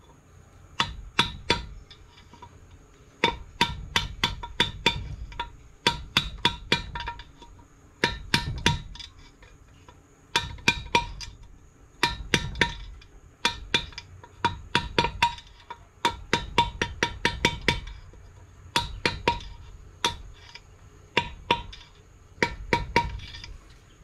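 Hammer tapping a camshaft bearing into its bore in the engine: runs of three to eight quick blows with a short metallic ring, a new run every second or two.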